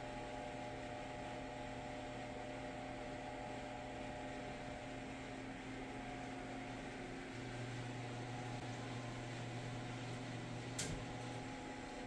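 Steady low electrical hum, a little louder for a few seconds past the middle, with a single short click near the end.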